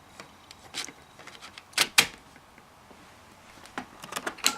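A floppy disk being handled and inserted into a USB floppy drive: a few separate plastic-and-metal clicks and clacks, the loudest about two seconds in, then a quick run of clicks near the end as the disk seats.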